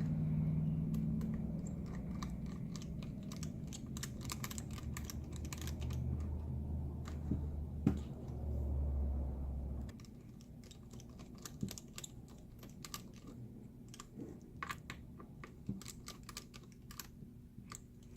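Small tool clicks and ticks as tiny screws are driven in with a precision screwdriver on a MacBook Pro's internal cable bracket, irregular and quick. A low hum runs underneath and stops about halfway.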